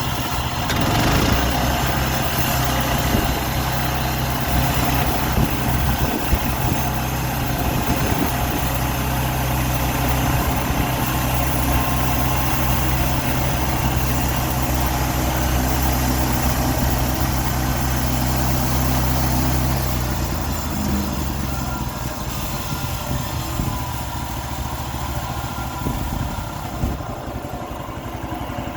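Sawmill's engine running steadily; its note changes and it gets a little quieter about twenty seconds in.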